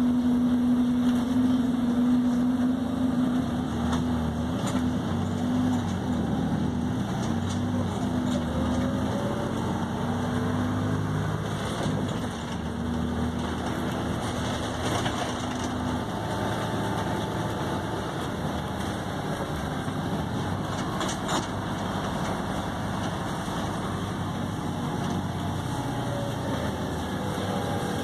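Volvo B7RLE bus with a ZF automatic gearbox, heard from inside the passenger saloon as it drives: a steady engine drone with a strong low hum that stops about halfway through, and faint whines gliding up and down in pitch.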